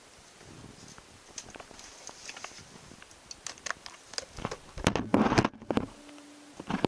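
Light clicks and rustles of handling, then a louder clatter of knocks about five seconds in as an airliner seatback tray table is moved, followed by a brief creak.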